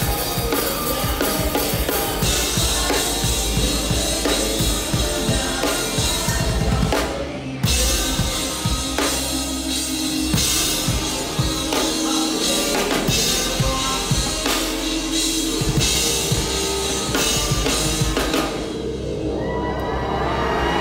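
Live rock band playing, with the drum kit close and loud: kick, snare and cymbals driving under bass and electric guitar. The band stops short for a moment about seven seconds in, then comes back in.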